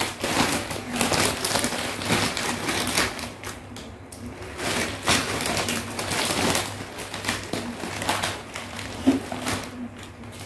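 Clear plastic bag of kerupuk crackers rustling and crinkling in a series of short bursts as the crackers are pulled out and handled.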